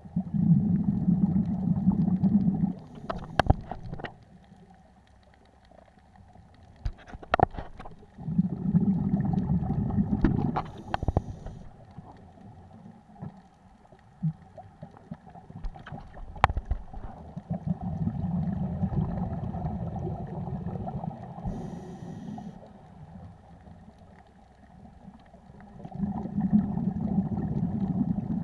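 Scuba divers' breathing heard underwater through a camera housing: four loud bursts of exhaled bubbles, each two to three seconds long and about eight seconds apart, with a short hiss of the regulator on the breath in after most of them. A few sharp clicks fall between the breaths.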